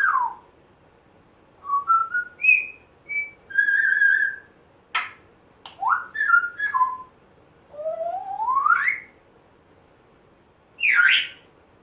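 African grey parrot whistling: a string of short notes stepping up in pitch, a held whistle, a couple of sharp clicks, then a long rising whistle and a harsher call near the end.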